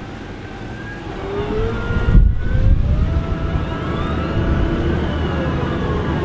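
Tractor diesel engine working hard and revving, its pitch gliding up and down, getting louder about a second and a half in.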